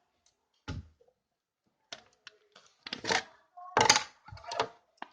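Household objects being handled and rummaged through: a dull knock, a few light clicks, then three louder rustling scrapes.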